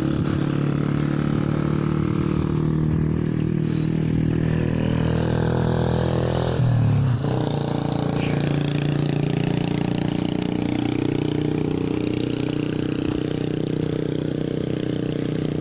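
Motorcycle engine running steadily, with a brief drop and change in pitch about seven seconds in, as when the throttle eases or the gear changes.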